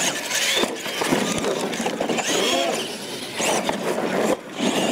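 Radio-controlled monster trucks racing on gravel: electric motors whining and tyres scrabbling, with a few sharp knocks in the first second as a truck goes over a ramp and lands. Crowd voices behind.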